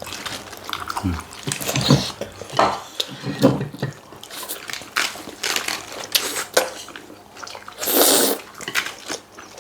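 Eating sounds: wet chewing and mouth sounds in irregular bursts, with a longer, louder burst about eight seconds in.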